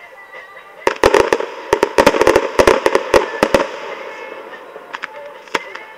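Fireworks going off: a rapid string of sharp cracks, a dozen or so packed into under three seconds starting about a second in, followed by a crackle that fades away.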